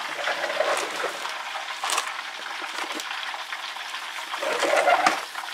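Hot frying oil sizzling and crackling steadily, with scattered sharp pops and a louder swell near the end.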